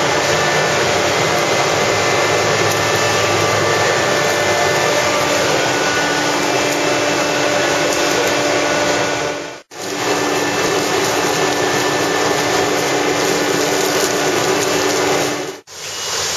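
Industrial furnace and its machinery running: a loud, steady noise with faint steady hums, broken off sharply twice, about ten seconds in and near the end.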